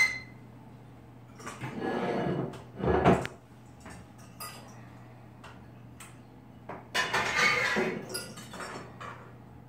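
Stored items being handled and shifted on a wooden loft shelf: scattered light knocks and clinks, a louder knock about three seconds in, and a longer spell of rattling and scraping about seven seconds in.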